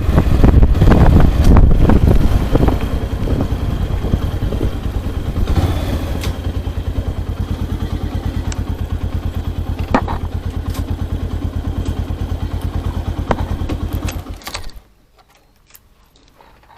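Motorcycle engine running, with wind blasting the microphone for the first couple of seconds. It then settles to an evenly pulsing idle and is switched off abruptly near the end.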